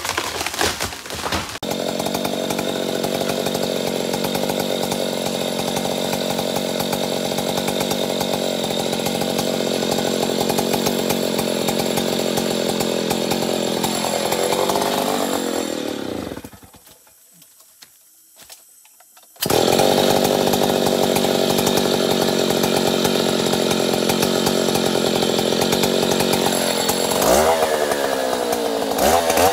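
Stihl 070 chainsaw, a large two-stroke, running at high revs while cutting into a big tree trunk. About 14 seconds in its pitch falls and it winds down to near silence for about three seconds, then comes back in abruptly at full speed. Near the end it is revved up and down several times.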